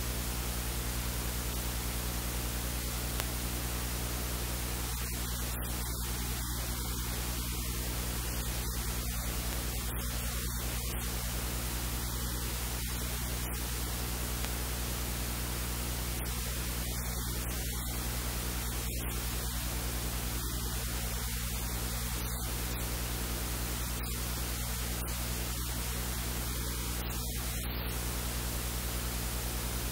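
Steady hiss with a low, even electrical hum: background recording noise, with no other sound standing out.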